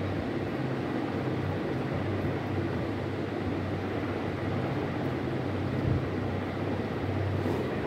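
Steady background hum with an even, airy hiss from running room machinery, unchanging throughout.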